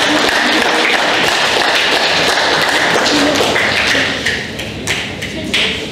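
Crowd applauding: dense clapping that thins out after about four seconds into a few last scattered claps.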